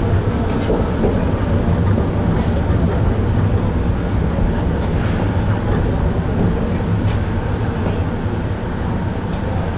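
Toyama Chiho Railway Tateyama Line train running along the track: a steady low rumble with a few faint clicks, typical of wheels passing rail joints.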